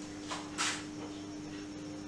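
Quiet room tone with a steady low hum, broken by two faint short swishes about half a second in.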